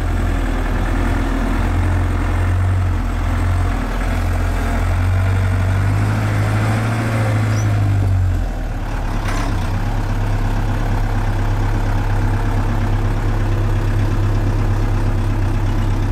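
Camper bus engine running as the bus drives along, heard from inside the cab as a steady low drone. The engine note rises about six seconds in and drops back about two seconds later.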